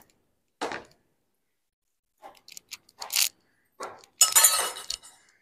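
Metal cookware being handled: a sharp click, a dull knock under a second in, then light clinks of steel vessels and a ladle, and a louder clatter of metal pots about four seconds in.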